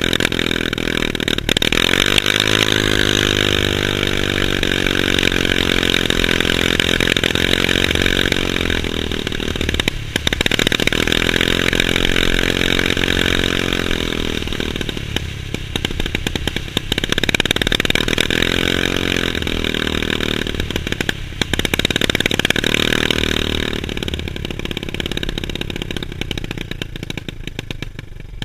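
New 170cc 161QMK four-stroke single-cylinder scooter engine on its break-in ride: its pitch climbs as the scooter accelerates and falls back when the throttle eases, several times over. Wind rushes over the helmet-mounted microphone.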